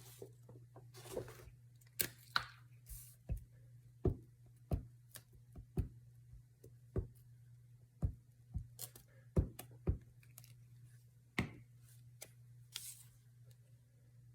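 Paper and craft supplies being handled on a tabletop: a dozen or so irregular light knocks and taps, with a few brief paper rustles, over a steady low hum.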